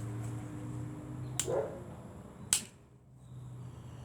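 Two sharp clicks about a second apart from an airsoft AR rifle being handled during a magazine reload; the second is the louder.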